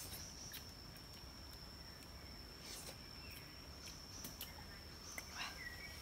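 A high, steady insect drone, as of a cricket or cicada, with scattered soft clicks and taps. A short bird chirp comes near the end.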